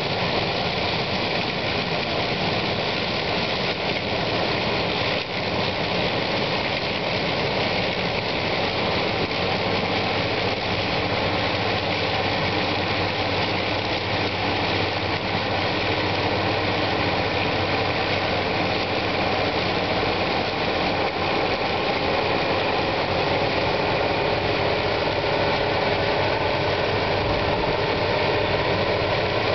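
Bizon Rekord Z058 combine harvester, a 1986 machine with an MFKA 4011 maize header, running steadily under load while harvesting maize. Its diesel engine and threshing machinery keep up an even mechanical drone.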